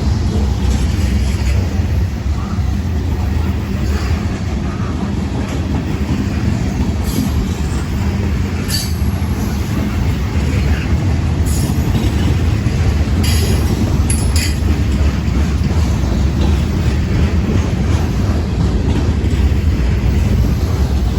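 Freight train cars rolling past in a steady low rumble, with a few brief high-pitched wheel squeaks and clicks midway through.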